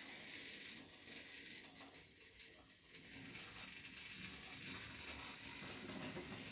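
Toy train running faintly: a steady high hiss with a few light mechanical clicks about one to three seconds in.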